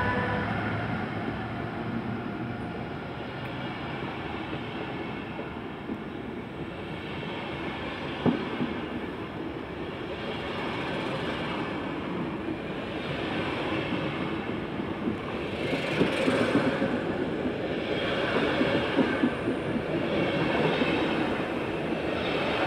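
DB Intercity passenger coaches rolling past close by on a curved track: a steady wheel-on-rail rumble with an occasional click of wheels over rail joints. It grows louder and brighter about two-thirds of the way in, with wheel squeal on the curve starting to come through.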